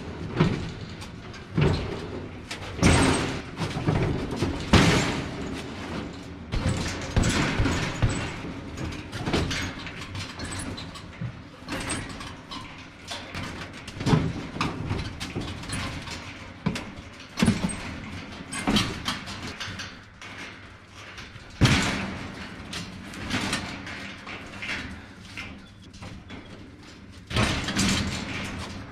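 Scrap sheet steel (roofing sheets and guttering) clattering and banging, with a string of irregularly spaced sharp bangs that ring on, between stretches of rattling metal.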